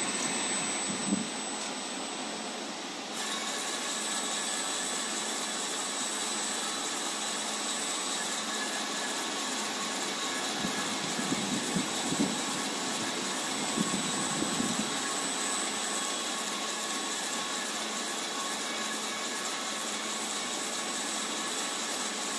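Steady mechanical hum and hiss with a high whine from a motor-driven welding rig tracking a pipe seam with no arc struck. It steps up about three seconds in and then runs evenly.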